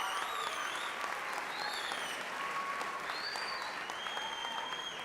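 Theatre audience applauding steadily, with a few high calls or whistles rising over the clapping.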